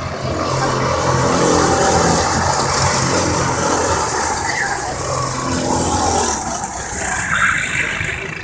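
Several racing kart engines running as a group of karts passes on the track, their pitch rising and falling. They grow louder about half a second in and ease off near the end.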